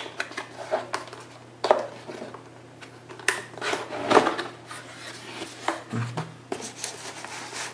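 Cardboard packaging being opened and the keyboard lifted out: irregular rustles, scrapes and knocks, the sharpest about a second and a half, three and four seconds in, over a low steady hum.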